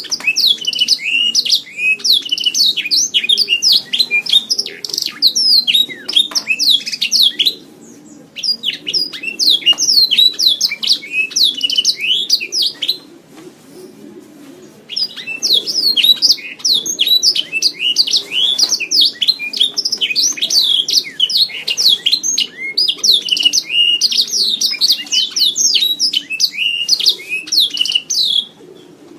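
Domestic canary singing long, rapid trilled and warbling phrases, with short breaks about eight seconds in and near the middle.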